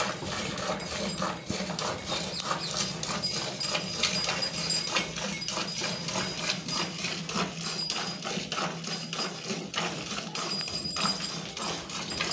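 Hand milking a cow: streams of milk squirting from the teats into a partly filled steel bucket, a steady run of short, quick splashes.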